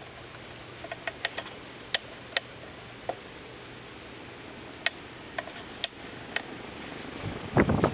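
Monte Carlo 24" Mini ceiling fan running, a faint steady motor hum under the rush of air, with irregular light ticks every second or so. Near the end there is a louder cluster of knocks and rustling.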